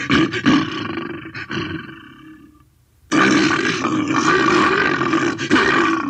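Postosuchus creature sound effect: a growling call that fades away over about three seconds, then after a brief gap a second call starts abruptly and carries on.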